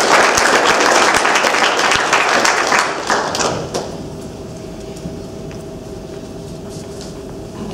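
Audience applauding, the clapping dying away about three and a half seconds in and leaving a steady hum with a faint drone.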